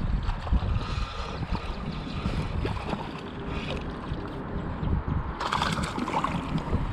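Wind on the microphone and moving river water, with a brief splash about five and a half seconds in as the hooked shad is brought to hand.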